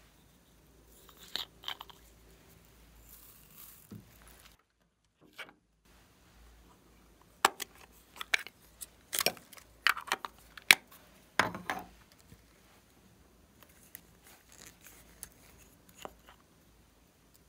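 Small plastic makeup containers being handled and opened: scattered light clicks, then about four seconds of quick sharp plastic clicks and snaps as the clasp and lid of a plastic eyeshadow compact are worked, with a few lone clicks near the end.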